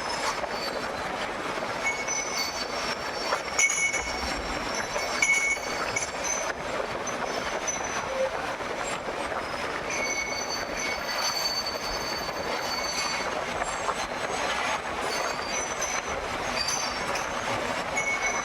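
Steady mechanical running noise with short, high metallic squeals coming and going over it, like metal wheels or machine parts rubbing on metal.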